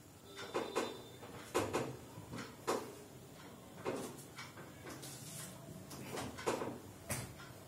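A series of irregular sharp knocks and clicks, some in quick pairs, about eight in all.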